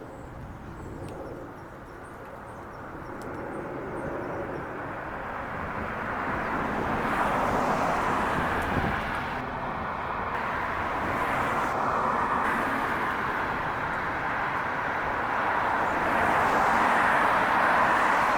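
Steady outdoor rushing noise that swells louder over the first several seconds, with two brief tonal chirps a little before the middle.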